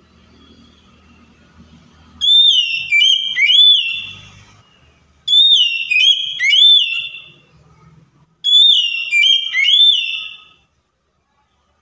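Oriental magpie-robin singing: loud, clear whistled phrases of swooping and rising notes, the same phrase given three times with short pauses between.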